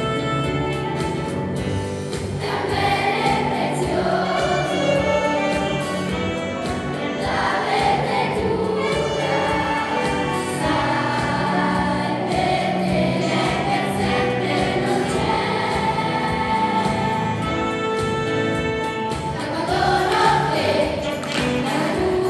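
Children's choir singing a song with instrumental accompaniment, a saxophone among it.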